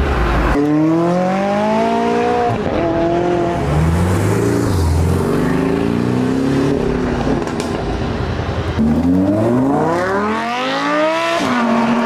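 Sports cars accelerating away one after another, their engines rising in pitch through the gears with short breaks at the gear changes. The last and hardest pull climbs steeply for over two seconds, then the sound switches abruptly to a steady engine note near the end.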